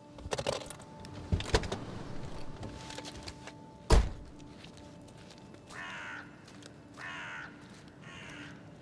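A car door is opened with clicks and rustling and slammed shut about four seconds in. Then a bird caws three times, about a second apart.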